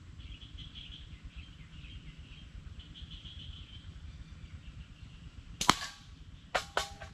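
A rubber-band slingshot fired once with a loud sharp snap near the end. Just under a second later come two quick sharp clacks with a short metallic ring, the steel shot striking a hanging tin can. Faint high birdsong or insect chirping runs underneath.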